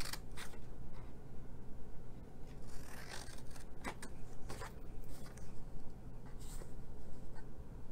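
Scissors cutting through cardstock: a series of short, crisp snips spaced irregularly, several close together in the middle, with light handling of the card in between.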